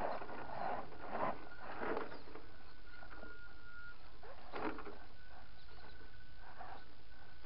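Radio-controlled Tamiya CC-01 crawler inching over rocks. Its electric motor gives a thin, high whine that stops and starts as the throttle is fed in, and there are a few short scrapes of tyres and chassis on stone.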